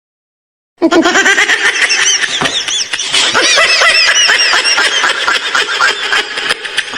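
Sound effect of many people laughing together, with overlapping high-pitched voices, starting abruptly about a second in after silence.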